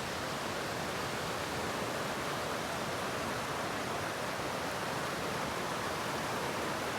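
Steady rush of a waterfall: an even, unbroken hiss of falling water that does not change.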